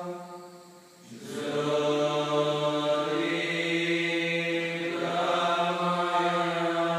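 Meditative chanting: a voice holding long sustained notes, one per breath. There is a short breath pause about a second in, and the vowel colour shifts during the held note.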